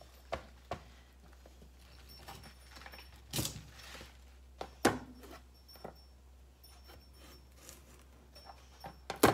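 Chef's knife cutting slices from a raw kohlrabi bulb on a plastic cutting board: a few scattered crunchy cuts and knocks, the loudest a sharp knock near the end, over a steady low hum.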